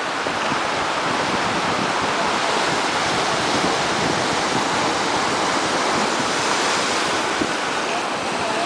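Ocean surf breaking and washing over rocks at the foot of a sea cliff, a steady rushing, with wind on the microphone.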